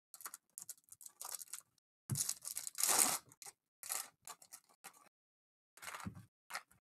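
Foil wrappers of Panini Mosaic basketball hobby card packs being torn open and crinkled by hand, in short irregular bursts. The loudest tear comes about two to three seconds in, and there is a brief pause just after five seconds.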